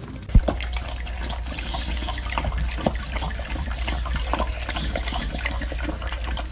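A dog lapping milk from a metal bowl: many quick, wet, splashy laps, after a single sharp knock near the start.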